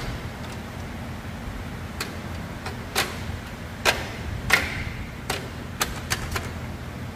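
A steady low hum with about eight sharp, irregular knocks and clicks on top, the loudest ones about three to four and a half seconds in.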